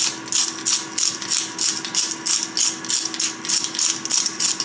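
Hand pepper grinder being twisted, its burrs cracking peppercorns in a quick even series of gritty clicks, about four to five a second.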